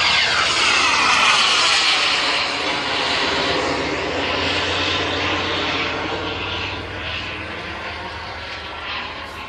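K-210 jet turbine of a giant RC F-86 Sabre model passing overhead: a loud jet whoosh whose pitch falls as it goes by in the first second or two, then fading steadily as the jet flies off.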